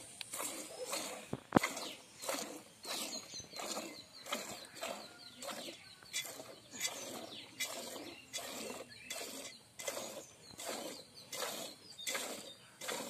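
Hand milking a cow: jets of milk squirting from the teats into a steel pot partly full of milk, about two strokes a second in a steady rhythm. There is one sharp click about a second and a half in.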